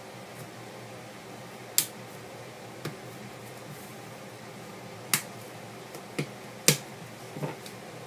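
Sharp plastic clicks and snaps, about six of them spread unevenly, as small plastic case pieces of a Casio Commando phone are pried off with a pry tool and pop loose.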